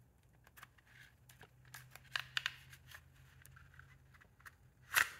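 Small clicks and rubbing from hands turning the plastic recoil pulley of a Husqvarna 440 starter cover, winding the pull rope on to charge the recoil spring. A few sharper clicks come about two seconds in and a louder one near the end.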